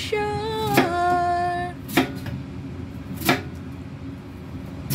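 Chef's knife chopping white radish on a wooden cutting board: about four sharp knocks, roughly one every second and a quarter. A woman's voice sings a pop love song over the first second and a half.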